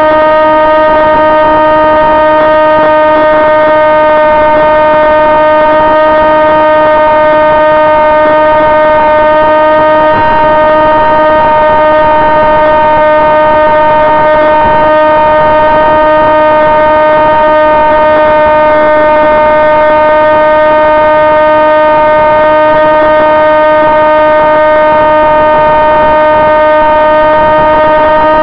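Electric motor and propeller of a Sonicmodell AR Wing FPV racing wing running at constant throttle: a loud, unchanging whine with many overtones.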